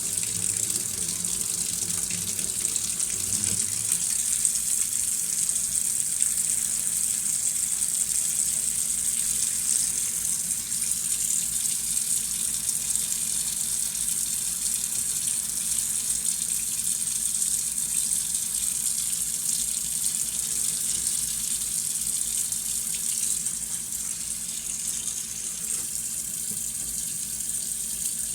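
Waterfall: water pouring and splashing in a steady, unbroken rush with a high hissing edge.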